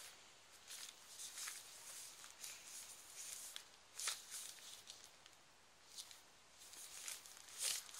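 Paper pages of a handmade journal rustling and ticking as they are turned and handled, with a louder rustle about four seconds in and another near the end.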